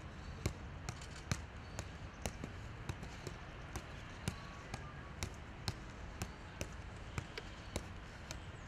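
A football being juggled, the ball struck off the foot and knee in a steady run of taps about two a second, over steady outdoor background noise.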